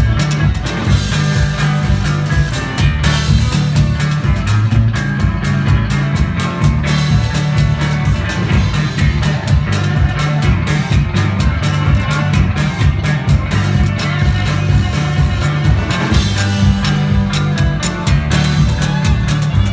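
Live country-blues trio playing at full volume: electric guitar over a heavy bass line, a driving drum kit, and a washboard scraped with gloved fingers.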